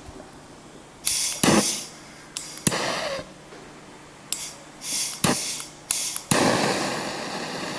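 A gas torch being lit: several short hisses of gas, each with a click, then about six seconds in it catches and burns with a steady hiss. The flame is heating the end of an old choke cable to melt the solder holding its fitting.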